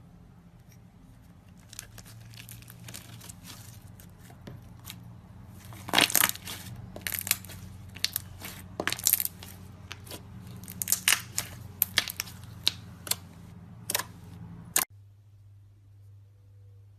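Slime being squeezed and worked by hand, giving irregular sharp pops and crackles that are loudest and most frequent from about six seconds in. A steady low hum runs underneath and stops suddenly, together with the pops, a couple of seconds before the end.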